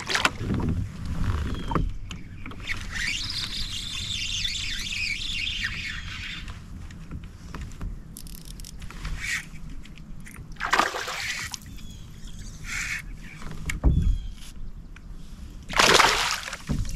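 Water splashing and sloshing around a kayak while a hooked fish is fought, with a few sudden louder splashes: one at the start, one about eleven seconds in and one near the end.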